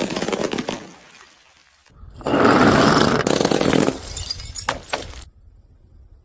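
A glass bottle smashing: a loud rush of breaking glass lasting about two seconds, then a few scattered clinks of shards settling. The tail of earlier breaking crackles out in the first second.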